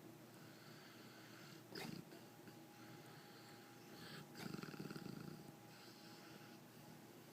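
A sleeping dog snoring quietly: a short sharp snort about two seconds in, then a longer rattling snore about four and a half seconds in.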